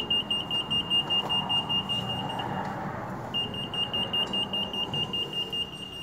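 EAS anti-theft gate alarm (CA 02 RF system) sounding during a test: a rapid, high-pitched pulsing beep in two runs of about three seconds, broken by a short pause near the middle.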